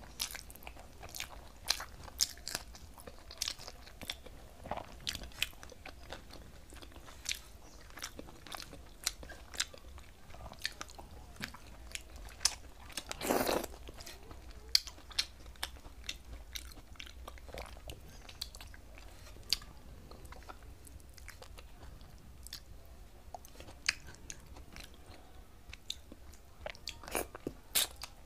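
Close-up mouth sounds of a woman chewing a mouthful of rice and fish curry, with many short wet clicks and smacks. About thirteen seconds in there is one louder, longer sound of about half a second.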